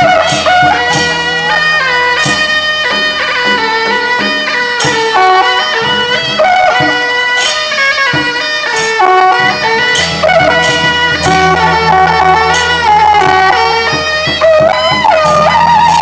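Traditional procession music: a reed wind instrument plays a melody with sliding, bending notes over scattered percussion strikes.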